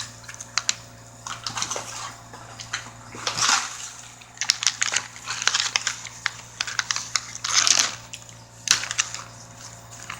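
Irregular crackling and crunching close to the microphone from a snack being handled and eaten, over a low steady hum.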